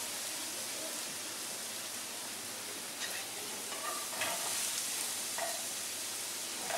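Food sizzling steadily in a frying pan while a wooden spatula stirs it, with a few short scrapes of the spatula against the pan about 3, 4 and 5.5 seconds in.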